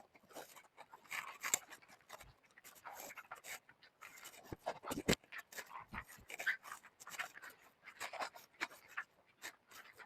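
Cloth rustling and scraping with scattered small clicks, as a belt is put on and fastened around a fabric jacket.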